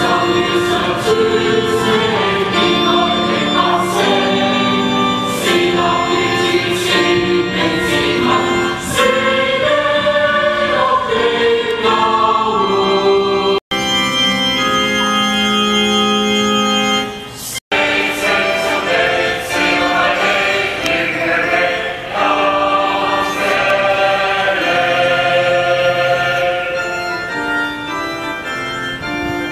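Choir singing a hymn with organ accompaniment. About fourteen seconds in, the sound cuts out for an instant, a few seconds of held organ chords follow, then it cuts out again and the singing resumes.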